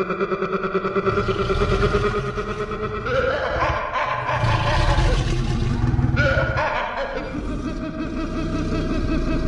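Dinosaur roar sound effect: long, deep growling calls over a low rumble, the pitch jumping higher about three seconds in and again about six seconds in.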